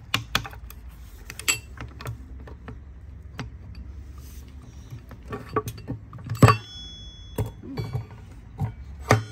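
Steel gears and shift forks of a T56 manual transmission clinking and knocking against each other and the aluminium case as the gear stack is worked free: a string of sharp taps, the loudest about six and a half seconds in, with a brief metallic ring. A steady low hum runs underneath.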